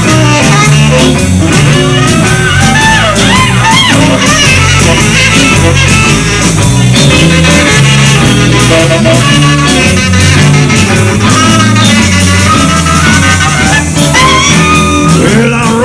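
Live blues band playing an instrumental break: electric guitars, electric bass and a Yamaha drum kit on a steady beat, with a tenor saxophone, and a lead line that bends up and down in pitch over the rhythm.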